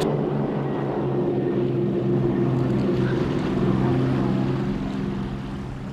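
Powerboat engines running at a steady pitch, easing off slightly near the end.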